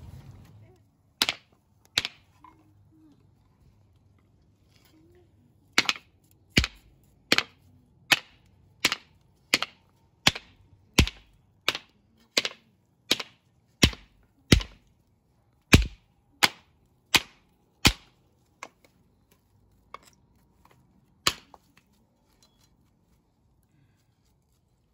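A steady run of sharp, hard knocks, about one every 0.7 seconds for some twelve seconds, with a couple of single knocks before and a few slower ones after.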